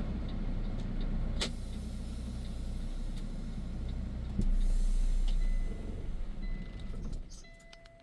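Heavy truck's engine running as the truck reverses slowly into position, with a single click about a second and a half in. The engine swells louder about four and a half seconds in, then falls away sharply about seven seconds in.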